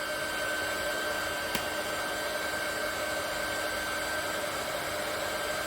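Craft heat tool (embossing heat gun) running steadily, a fan-driven hiss with a thin high whine, blowing hot air to melt pieces of sealing wax.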